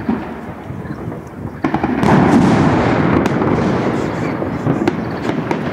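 Fireworks shells bursting overhead: a sharp bang about a second and a half in, then a loud, dense crackling rumble of bursts that slowly fades, with a few sharper cracks.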